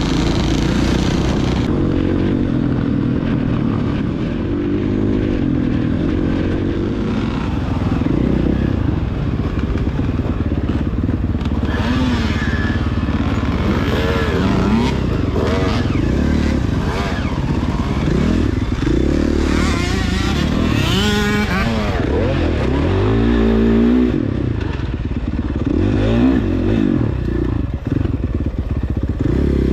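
Dirt bike engine being ridden hard, its pitch rising and falling again and again with the throttle and gear changes.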